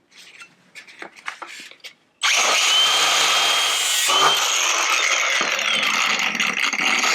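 Light handling clicks, then about two seconds in a power tool starts cutting the steel repair panel, a loud steady hissing cut that carries on without a break.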